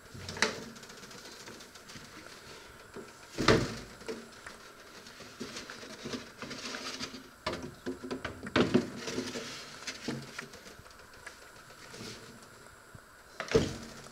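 Combination microwave-grill oven door opened with a clunk, then the metal grill tray clattering and scraping as it is handled with an oven cloth, and the door shut with a sharp knock near the end.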